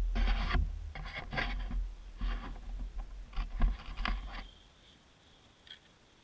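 Handling noise from a DJI Phantom quadcopter and its camera as it is set down on pavement: irregular rubbing and scraping on the microphone over a low rumble. This stops about four and a half seconds in, leaving near silence with a faint steady high whine.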